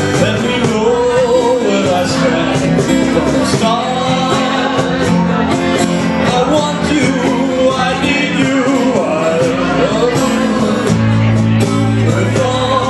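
Live music: a man singing over guitar and electric bass guitar.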